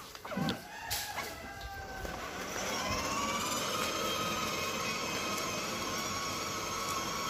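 Electric ride-on toy car's motors and gearbox whining as it drives, rising slightly in pitch as it gets going and then holding a steady tone.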